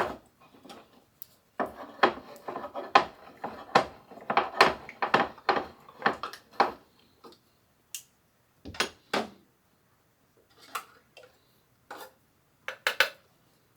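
Metal clicks and clanks as a 29-ounce can of tomato sauce is opened with a can opener and emptied into a slow cooker crock. The clicks come thick and irregular at first, then thin out to a few separate knocks as the can is tapped out against the pot.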